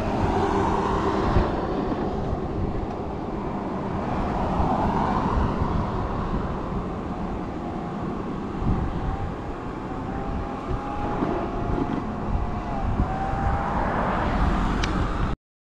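Road traffic on a busy street: a steady rush of cars passing, without speech. The sound cuts off abruptly near the end.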